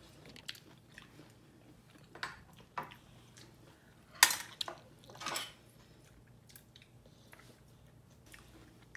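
A baby chewing a mouthful of food, with a few short, sharp clicks and smacks; the loudest comes about four seconds in, and the last few seconds are nearly still.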